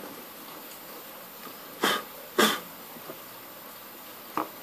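Two short coughs about half a second apart, with a faint tap near the end.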